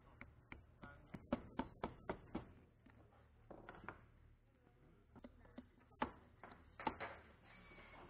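Hammer and mallet blows on sheet aluminum being hand-formed over a wooden forming block: sharp taps in irregular runs, several a second, with a short lull in the middle and the heaviest blows near the end.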